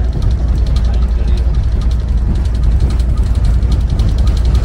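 Steady low rumble of a Scania K400IB touring bus's diesel engine and road noise, heard from inside the bus, with a fast, even rattling tick over most of it.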